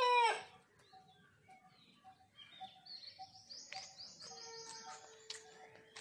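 The falling end of a rooster's crow, cut off about half a second in. Then quieter background music: a short note repeating about twice a second, and a held tone from about the middle.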